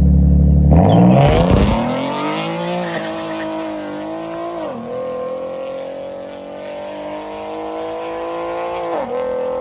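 Nissan 370Z and Lexus GS engines held at high revs on the line, then launching hard about a second in with a brief squeal of tyres. The engines pull away with their pitch climbing, dropping sharply at an upshift about halfway through and another near the end, and grow fainter as the cars race off.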